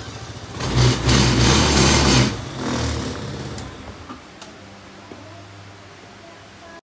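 Kymco Easy 100 scooter engine running: revved for about two seconds, then dropping back to a steady idle.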